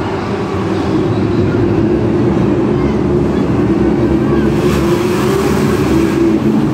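Engines of Polaris RZR side-by-sides racing on a dirt track, a loud, steady engine drone.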